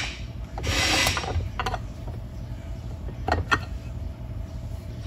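Metal transmission cover scraping and clinking as it is worked loose and lifted off an automatic transmission case: a short scrape about half a second in, then a few sharp metal clinks, the loudest near the end.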